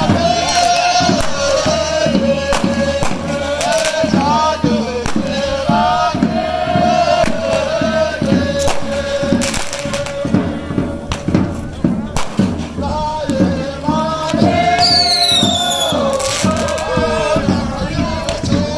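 A group of voices singing a Tibetan folk dance song together, with sharp rhythmic beats running under the melody. A high whistle falls in pitch about fifteen seconds in.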